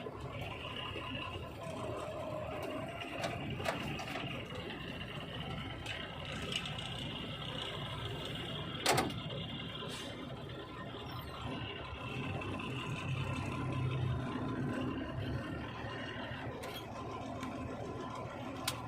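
A vehicle driving on a highway: steady engine and road rumble, with a sharp click about nine seconds in.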